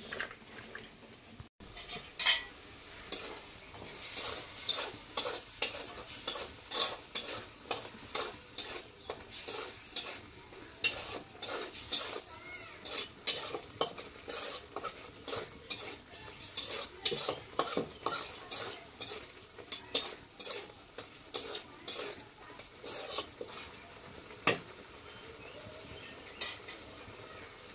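Metal spatula scraping and clinking against a metal kadai while spices are stirred in hot oil, about two strokes a second, over a faint frying sizzle. Two louder knocks stand out, one near the start and one near the end, after which the stirring stops.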